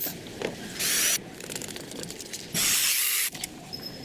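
Short bursts of hissing spray, twice, each starting and stopping sharply, with light clicks and ticks in between.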